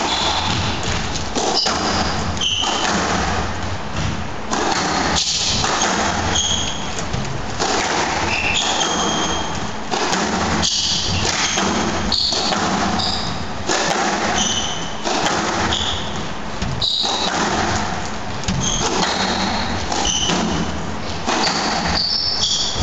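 Squash rally: the ball striking racket and walls again and again, with many short high squeaks of the players' court shoes on the floor.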